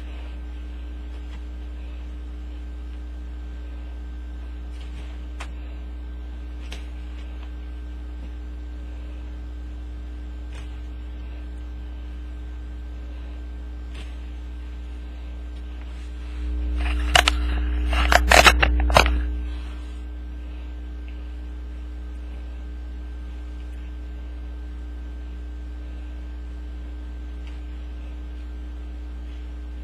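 Steady low electrical hum throughout, with a few faint clicks. About seventeen seconds in, a burst of rustling and several sharp clicks lasts about three seconds and is the loudest sound.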